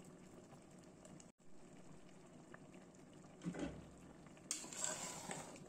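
Chickpea curry bubbling at a simmer in a steel pot, with a short thump about three and a half seconds in and louder bubbling near the end.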